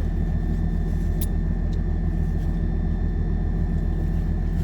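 Steady low mechanical hum and rumble with a constant faint whine above it, and a small tick about a second in.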